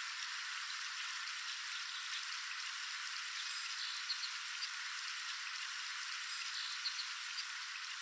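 Steady background hiss, with a few faint short ticks past the middle. No kingfisher rattle is heard.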